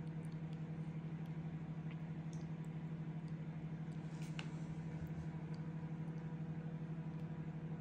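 A steady low mechanical hum with a regular pulsing, running through, with a few faint small clicks over it, the clearest about four seconds in.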